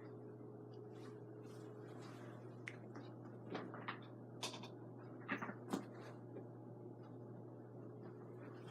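Mainstays hugger ceiling fan running, a faint steady motor hum with a constant low tone and a few steady higher tones, with scattered faint clicks.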